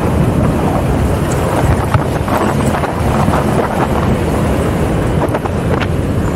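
Jeep running over an off-road dirt and rock trail: steady engine and tyre noise with wind buffeting the microphone, and scattered short knocks.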